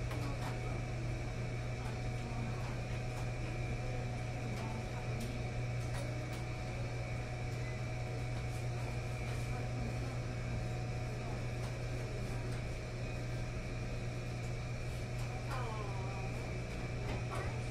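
Laundromat room tone: a steady low hum of running machines with a thin steady high tone over it, faint voices in the background and a few light clicks.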